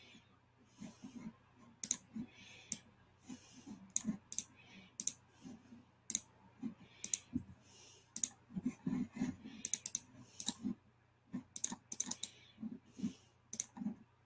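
Irregular clicking and tapping on a computer keyboard and mouse, short sharp clicks, several a second in flurries, with small thuds on the desk.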